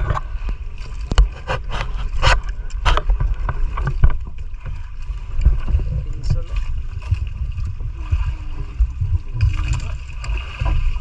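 Uneven low rumble of wind and water aboard a small fishing boat at sea, with several sharp knocks in the first three seconds.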